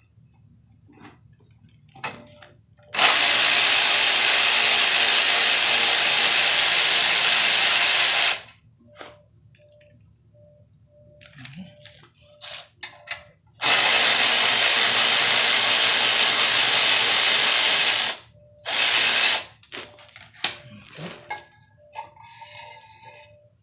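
A power tool running in three bursts, backing out the bolt that holds a tailpipe into the muffler: a long run about three seconds in, another of about four seconds near the middle, then a short one. Small metal clinks from the bolt and tool in between.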